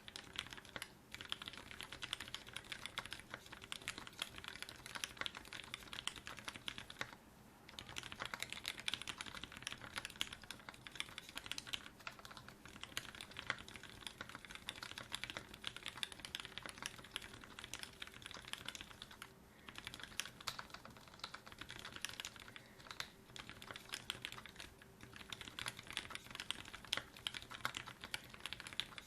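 Fast, continuous typing on a mechanical keyboard with Fei switches in Cherry small-top housings and GMK Oblivion keycaps: a dense run of key clacks, broken by a few brief pauses.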